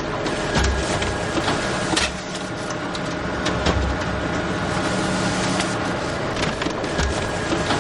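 Photocopier running: a steady mechanical whirring with a faint high hum, scattered clicks and low thumps every second or two.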